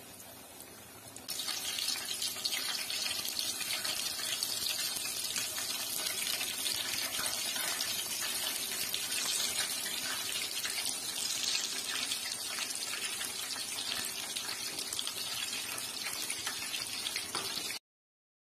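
Flour-coated chicken pieces deep-frying in hot ghee: a steady sizzle thick with fine crackles that jumps louder about a second in and cuts off suddenly near the end.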